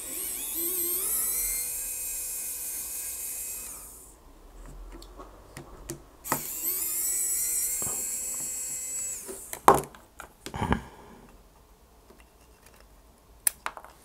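Electric precision screwdriver whining as it backs screws out of a drone's frame. It runs in two stretches of about four and three seconds with a short pause between them, and is followed by a few light clicks of small parts being handled.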